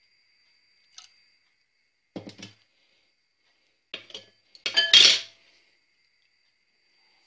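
A utensil and dishes clinking and knocking against a pot and bowl in a few short bursts, the loudest and longest about five seconds in.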